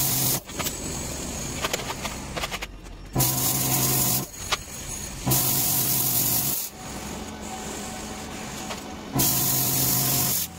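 Handheld plasma cutter cutting a metal sheet in repeated cuts of about a second each. Each cut is a loud hiss with a steady buzz under it, and a quieter hiss carries on between the cuts.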